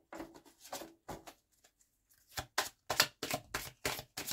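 A deck of large oracle cards shuffled by hand: soft card sounds at first, a short pause near the middle, then a quick run of card slaps and flicks, about five a second.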